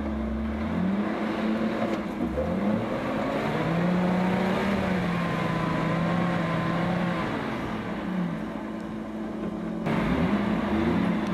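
Small off-road 4x4's engine revving under load as it climbs out of a deep snow-and-mud rut, its pitch rising, holding and easing off several times.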